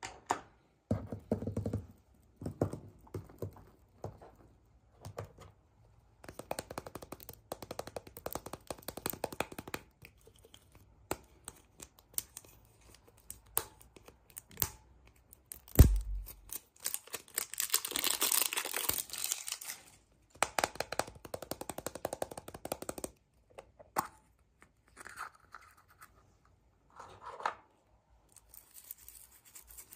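Packaging being handled and torn open by hand: bursts of rustling and tearing with clicks and scrapes, and one heavy thump about 16 seconds in.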